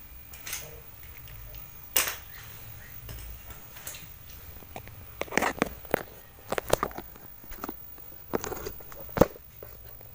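Scattered sharp clicks and knocks over a low steady hum, the sharpest about two seconds in and again about nine seconds in.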